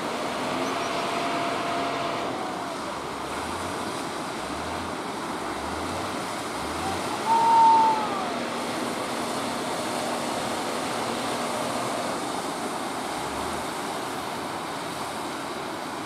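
Steady rushing of rough surf and wind. About seven and a half seconds in, a brief loud call that falls in pitch rises above it.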